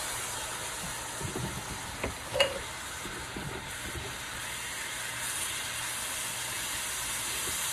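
Ground pork and onions sizzling in margarine in a wok, with a spatula scraping and knocking against the pan as the meat is broken up; the sharpest knock comes about two and a half seconds in.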